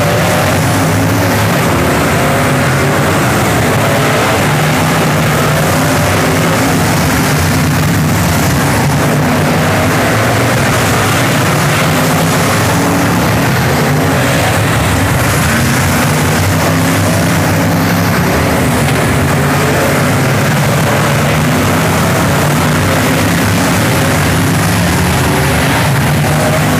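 Figure-eight race cars' engines running at speed, loud and unbroken, their pitch rising and falling throughout.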